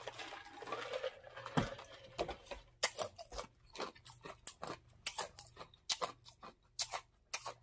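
A man drinking from a large mug, with soft sipping and swallowing at first. From about three seconds in come a string of sharp, wet lip smacks and mouth clicks.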